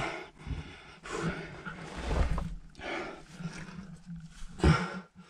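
A person breathing hard and straining close to the microphone, several loud breaths spaced unevenly about a second apart, while crawling through a tight rock passage, with low scraping and bumping of the camera against the rock.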